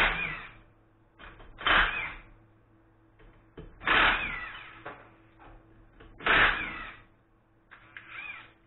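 Cordless impact wrench run in short bursts on a car's wheel nuts: four loud bursts of under a second each, about two seconds apart, and a weaker one near the end.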